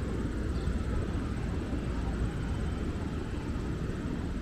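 Wind on the microphone: a steady low rumble with no distinct events.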